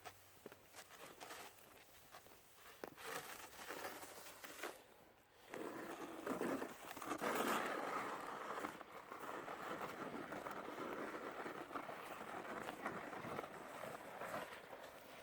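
Crunching steps in snow, scattered short crunches, then from about five seconds in a louder, steadier scraping and crunching noise.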